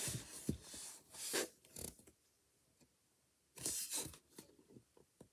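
Handling noise: short rustles with a few light taps and clicks, in three brief bursts, the first as it starts, one about a second in and one near four seconds in, with near quiet between.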